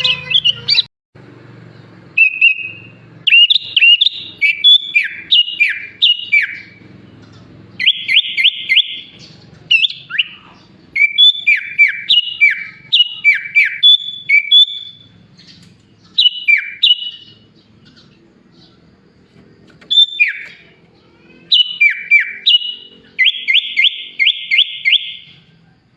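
A sooty-headed bulbul sings loud phrases of clear whistled notes that sweep downward, broken by short pauses. Twice, about eight seconds in and again near the end, it gives a fast rattling trill. Its song is filled with learned phrases copied from bar-winged prinia, greater green leafbird and Asian pied starling.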